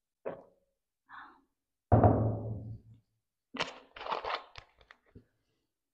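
Drinking soda from a glass mug and handling a plastic soda bottle: a few small sips or taps, a loud, low thud about two seconds in that dies away over about a second, then a run of crackly clicks and crinkles.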